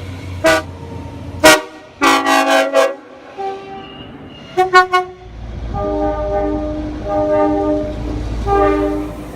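A series of train horn blasts from several trains, cut one after another: short toots, a longer blast, two quick toots, then about four blasts over the low rumble of a moving train.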